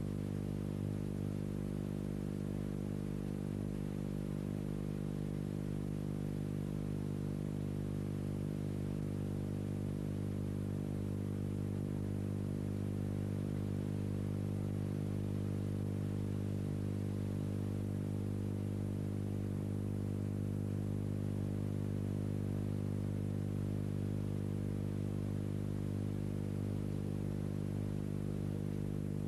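Steady low electrical hum with many overtones, unchanging in pitch and level.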